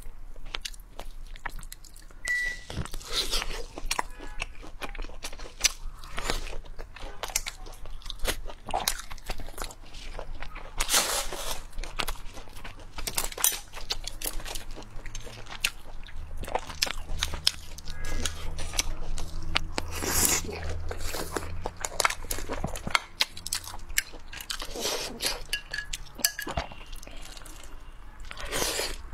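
Close-miked eating sounds: many short sharp crunches and cracks, biting and chewing, with the handling of a cooked lobster's shell and meat.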